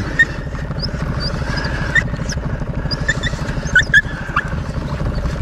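Small birds chirping in many short, high calls over a steady low rumble.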